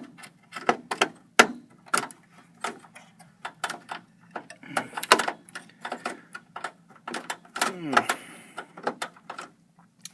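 Irregular clicks and knocks of a graphics card being worked one-handed into its expansion slot in a desktop PC case, the card and its metal bracket tapping against the case and slot.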